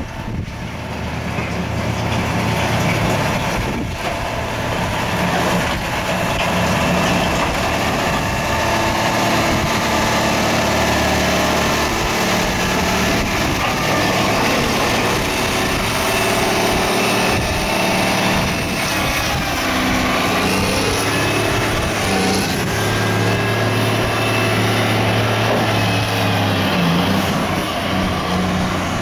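The diesel engine of a Caterpillar 160H motor grader running as the grader drives past at low speed. It grows louder over the first couple of seconds as it approaches, then holds a steady note that shifts in pitch a few times.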